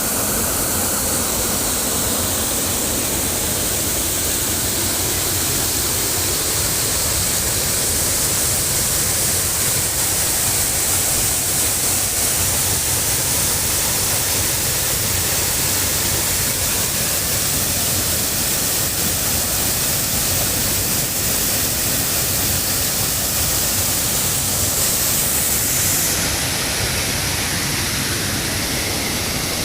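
Flowing water rushing steadily, with a slight change in its hiss about 26 seconds in.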